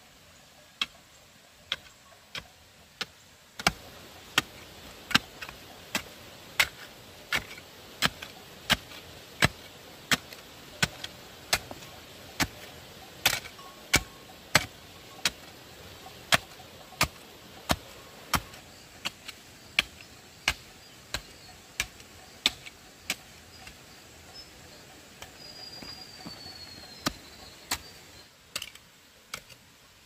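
A hand tool striking bamboo in steady, even blows, about three every two seconds.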